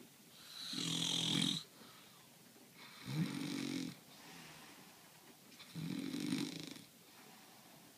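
A man snoring in regular, rasping snores, three in all, each about a second long and spaced roughly two and a half seconds apart.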